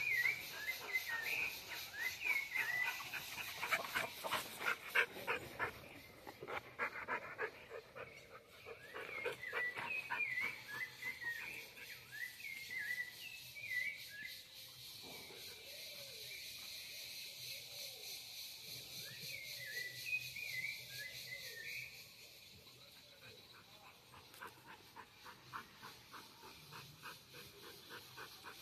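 Two dogs panting and sniffing around plants, the panting coming in quick repeated breaths. Three clusters of short high chirps come and go over it.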